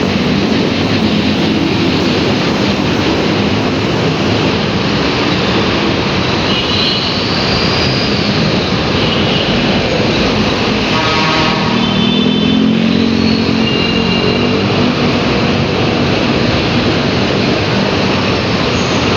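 Steady road and wind noise from riding through traffic, with a few brief high-pitched tones around the middle.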